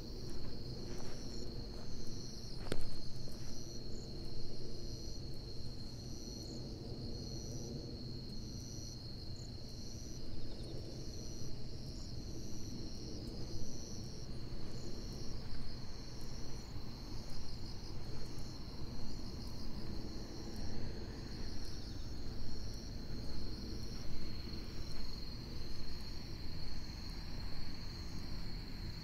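Chorus of night insects: one steady high-pitched trill with a second insect chirping over it a little more than once a second. Soft thuds about once a second, likely footsteps, sit underneath.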